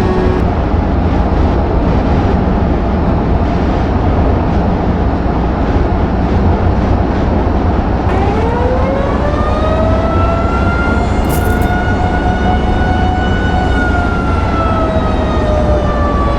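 Warning siren sounding in a test: a wailing tone with overtones winds up about halfway through, holds steady for several seconds, then slowly falls away near the end. The tail of an earlier falling wail dies out right at the start. A loud steady noise runs underneath throughout.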